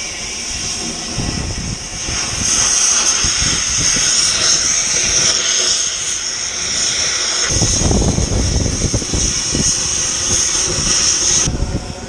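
Steel-cutting torch hissing steadily as it cuts through a thick steel piece, throwing sparks. A low rumble joins about two-thirds through, and the hiss cuts off shortly before the end.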